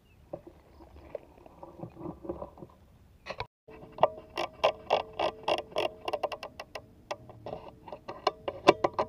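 Background music of quick, evenly paced plucked-string notes with a ticking beat, cut in abruptly about three and a half seconds in after a brief dropout. Before it there are only faint, scattered low sounds.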